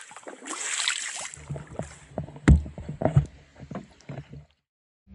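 Canoe paddle strokes swishing through the water, twice in the first second or so, then a run of hollow knocks and bumps over a low rumble, the loudest about two and a half seconds in. The sound cuts off shortly before the end.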